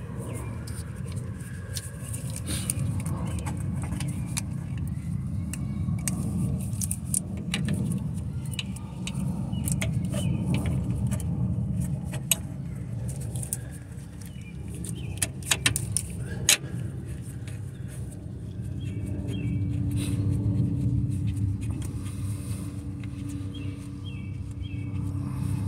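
Hand wrench working the bolt of a car's engine torque mount, giving scattered sharp metallic clicks and clinks, most of them in the middle of the stretch, over a steady low rumble.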